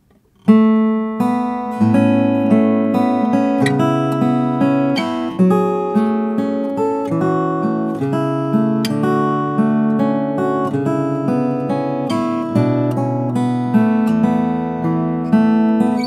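Acoustic guitar played fingerstyle, plucked notes and chords ringing out one after another, starting about half a second in.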